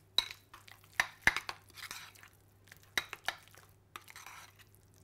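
A spoon stirring parsley into ricotta in a bowl: several sharp clinks of the spoon against the bowl, with soft scraping and squishing of the thick cheese in between.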